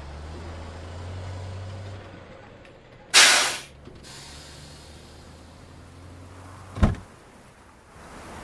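A heavy truck's engine idles with a low steady hum. About three seconds in, a loud short burst of noise cuts across it, and a sharp single knock comes about seven seconds in.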